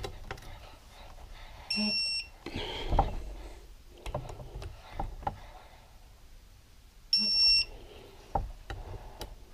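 Digital torque wrench beeping and buzzing twice, each for about half a second, as it reaches its set torque on engine case bolts; light clicks and knocks of the tool on the bolts in between.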